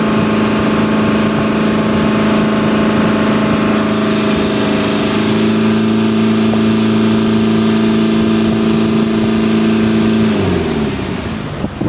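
Engine of a motorized outrigger boat (bangka) running steadily under way, over the hiss of rushing water and wind. About ten seconds in it is throttled back and its pitch falls away as the boat slows.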